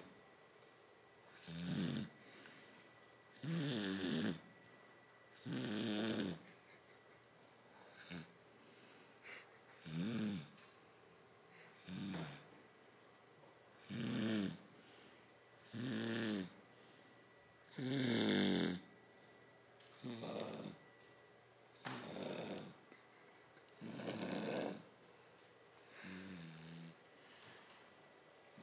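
Snoring: about a dozen rough, pitched snores in a regular rhythm, one roughly every two seconds, the loudest about two-thirds of the way through.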